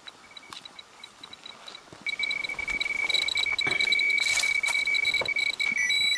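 Handheld radiation dosimeter beeping: a few sparse beeps, then about two seconds in a steady high alarm tone that holds. The alarm is the sign of a high radiation dose rate.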